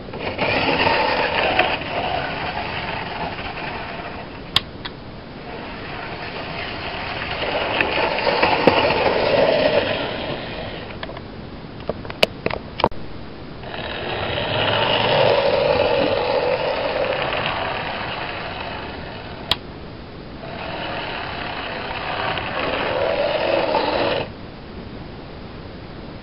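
OO gauge model locomotives running on the layout: the whirr of small electric motors and wheels on the rails, swelling and fading in four passes, the last cutting off suddenly. A few sharp clicks fall between the passes.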